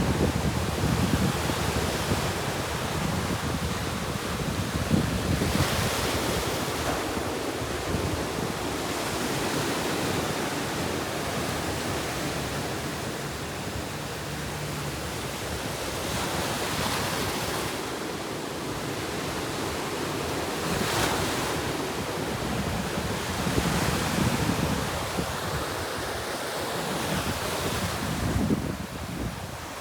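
Ocean surf, with waves breaking and washing in every few seconds, and wind rumbling on the microphone.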